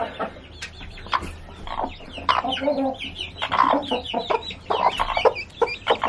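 Broody hen clucking on her nest, with her newly hatched chicks peeping in short, high calls again and again.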